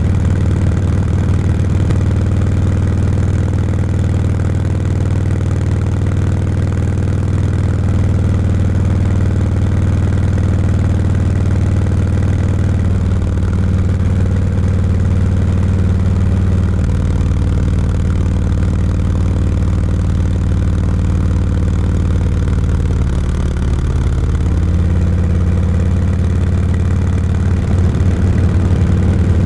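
Touring motorcycle engine running steadily under way, heard from on the bike, its pitch shifting down and up a few times as the revs change.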